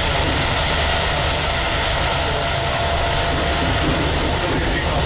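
Steady running noise inside the passenger saloon of a moving ČD class 460 'Tornádo' electric multiple unit: a continuous low rumble of wheels on rail with a faint steady tone over it.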